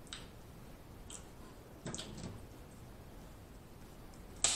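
A few faint cracks and clicks of snow crab leg shell being snapped apart by hand, with a sharper crunch near the end as kitchen scissors cut into the shell.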